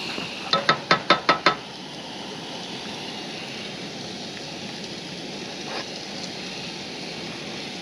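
Steady sizzling hiss of pork chops cooking on a Coleman propane camp stove's grill, with a quick run of six sharp clicks about half a second in.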